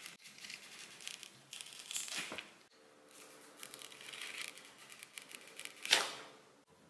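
Thin plastic protective film being peeled off an iPhone SE (2020), a crackly tearing rustle in several stretches, with a sharp loud rip about six seconds in.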